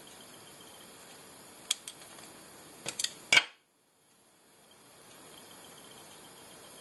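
Small sharp clicks from hands and tools working at a fly-tying vise, a cluster of them near the middle with the loudest about three and a half seconds in, over a faint steady hiss. Right after the loudest click the sound drops out for half a second, then the hiss fades back in.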